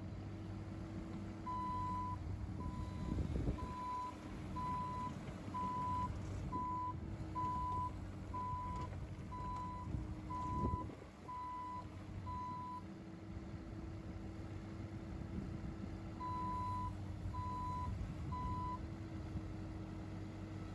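Bobcat E26 mini excavator moving on its tracks: the travel alarm beeps about once a second for some eleven seconds, stops, then beeps three more times near the end, over the steady running of its 25-horsepower diesel engine. Two brief knocks come through, a few seconds in and about halfway.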